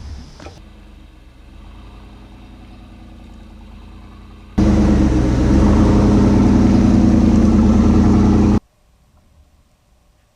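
An engine runs steadily with an even hum. It is at a moderate level at first, then abruptly much louder for about four seconds. Near the end it cuts off suddenly to faint background noise.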